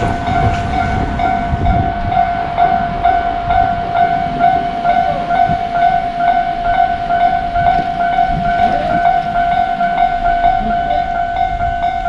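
Railway level-crossing warning bell ringing continuously in a rapid, even repeat, with a low rumble underneath.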